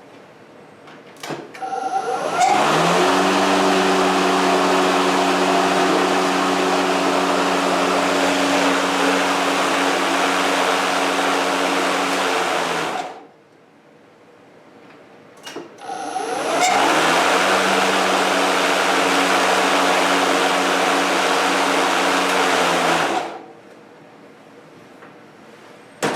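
Kobalt 80-volt cordless electric lawnmower started twice on its first startup. Each time a click comes first, then the motor and blade spin up with a rising whine and run steadily. The first run lasts about ten seconds and the second about six, with a short pause between them, and each run winds down when it is switched off.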